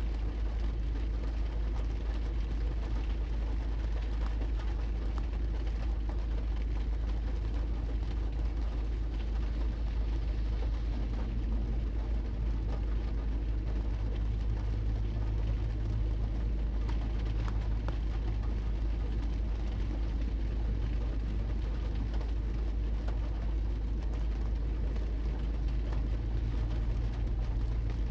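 Rain pattering on a car's windshield, heard from inside the cabin as many small ticks over a steady low rumble from the car.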